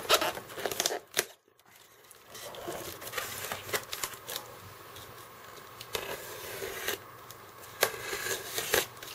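Polystyrene foam shipping box being opened by hand: tape peeled off and the foam lid worked loose and lifted away, with crinkling and tearing sounds and scattered clicks. The handling breaks off into near silence for about a second, shortly after the start.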